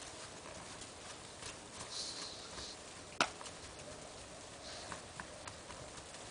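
Snow being packed and patted by hand, with a pug sniffing and stepping in loose snow. There are faint scattered crunches and soft hisses, and one sharp click about three seconds in.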